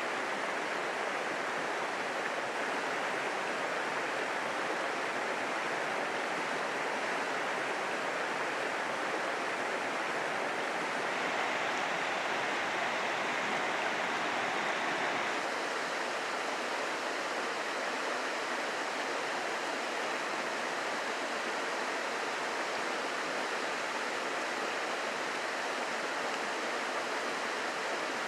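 Steady rush of a rocky stream running over small cascades and riffles. The tone of the water shifts slightly about 11 seconds in and again about 15 seconds in.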